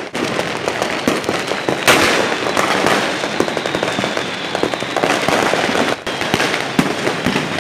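New Year fireworks and firecrackers going off in a dense, continuous crackle of pops and bangs, the loudest bang about two seconds in.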